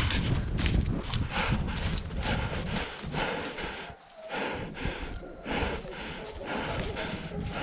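A person running on grass, footfalls about three a second, heard from a body-worn camera. Wind rumbles on the microphone in the first couple of seconds, then eases.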